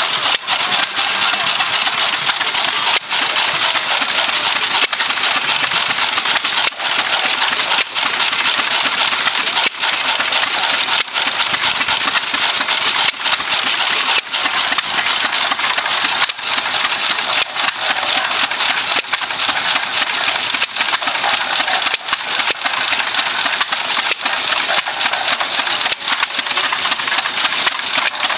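Antique hit-and-miss stationary gasoline engines running, a steady mechanical clatter with no pause across the whole stretch.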